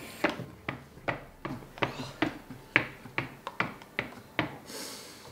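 Short, sharp mouth sounds, quick breaths, hisses and smacks, about two a second, from people whose mouths are burning from very hot chili sauce, with a longer hiss near the end.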